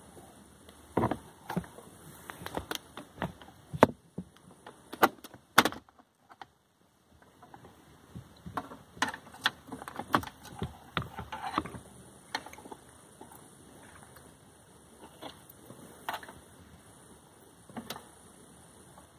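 Scattered clicks and knocks of the 1997 Toyota Camry's plastic center-dash trim being pried at with a metal pick and handled, with a short pause about six seconds in.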